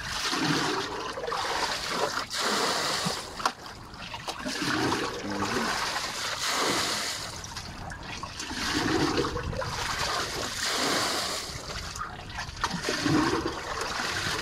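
Water being bailed out of a boat's flooded hold with a plastic bucket: repeated scooping splashes and pouring, about one every two seconds.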